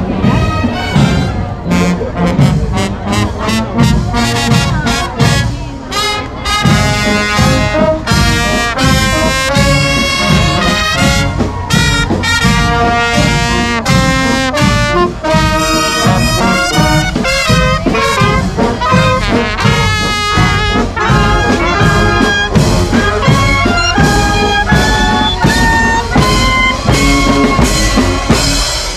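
Brass band music: trumpets and trombones playing a lively tune over steady drumming.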